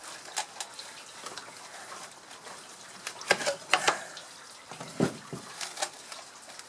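Gloved hands breaking out sand molds packed in tin cans after an aluminium casting: scattered knocks and scrapes of tin and packed casting sand, loudest a little after three seconds in and again around five seconds.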